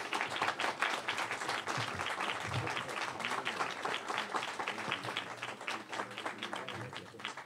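Crowd applauding, a dense patter of many hands clapping that thins out near the end.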